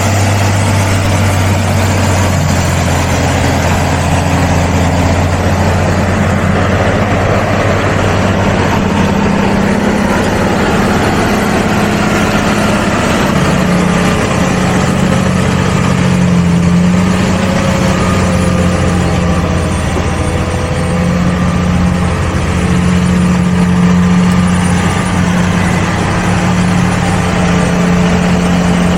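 Tractor diesel engine running steadily while pulling a plough.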